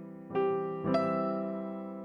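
Background music: slow piano chords, two struck in quick succession and each left to ring and fade.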